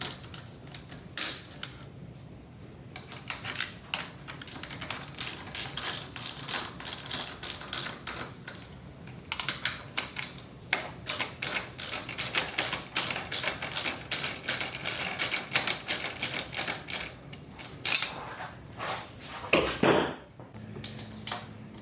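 Hand ratchet clicking in quick runs as the hex-head bolts of a handlebar base clamp are run down, with a couple of louder clacks near the end.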